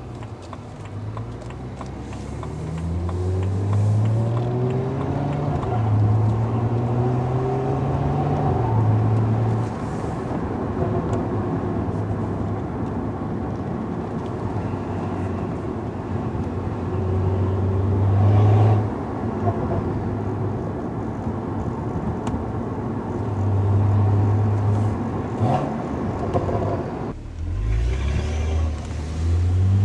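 BMW N55 turbocharged inline-six with a VRSF catted downpipe, heard from inside the cabin with the windows down, pulling through city driving. The engine note repeatedly rises, holds and falls as the car accelerates and eases off, and it drops away sharply near the end before pulling up again.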